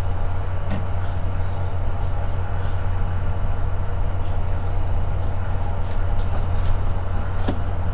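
A steady low hum, with a faint click about a second in and another near the end.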